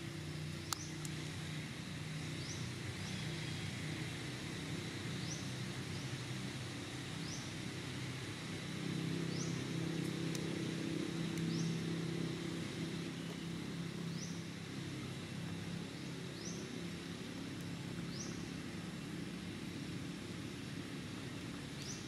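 Steady low engine drone, like distant traffic, swelling for a few seconds about halfway through. A short high rising chirp repeats about every two seconds, and there is a single sharp click about a second in.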